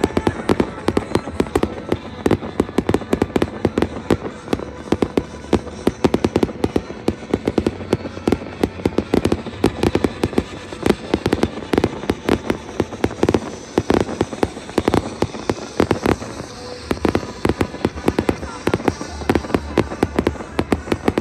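Fireworks display: a rapid, continuous series of sharp bangs and crackles, several a second throughout.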